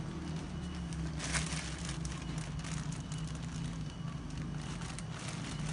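Clear plastic bag crinkling and fresh chilies rustling as hands dig into the bagful, an irregular run of small crackles with a louder flurry about a second in. A steady low hum runs underneath.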